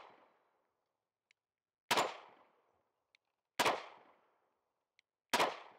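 Smith & Wesson Equalizer 9mm pistol fired three single shots, slow and evenly paced about 1.7 seconds apart, each a sharp crack with a brief fading echo.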